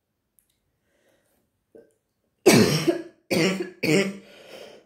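A person coughing three times in quick succession, starting about halfway through.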